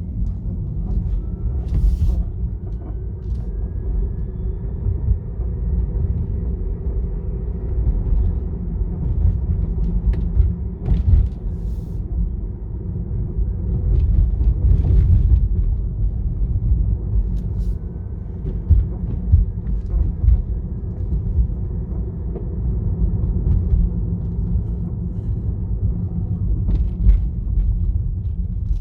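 Tesla Model 3's low road rumble while driving, with a dull squeak and creak from the front axle now and then. The uploader puts the creak down to worn first-generation front control arms.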